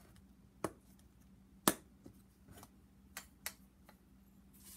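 A plastic spice shaker being handled: its cap taken off and the bottle tipped, giving six or so short, sharp clicks and taps, the loudest about a second and a half in.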